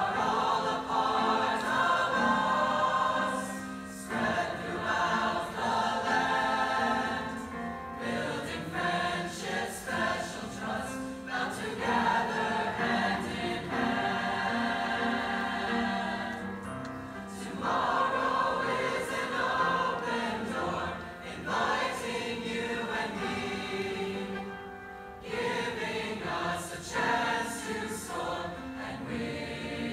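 Large mixed choir of young men and women singing a school anthem in phrases, with short breaks between lines.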